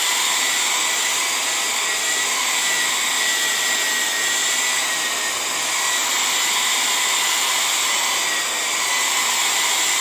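Nova NHP 8100/05 1200-watt foldable hair dryer running steadily on its hot-air setting: an even rushing blow of air with a faint, steady high whine from the motor.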